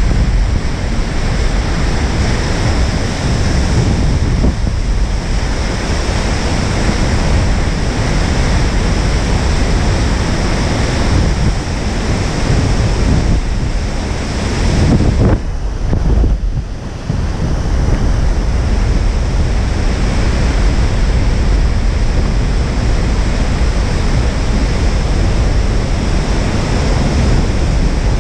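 Wind buffeting the microphone over the steady wash of large breaking surf, easing briefly about halfway through.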